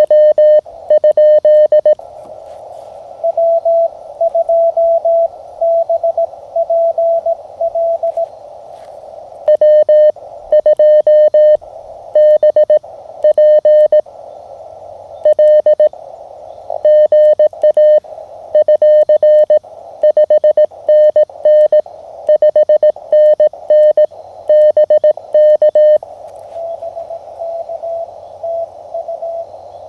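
Morse code (CW) audio from a Mountain Topper (MTR) QRP transceiver, heard over steady receiver hiss. Loud keyed dits and dahs at a slightly lower pitch alternate with quieter, slightly higher-pitched Morse. This is the operator's own sending sidetone trading with another station's reply.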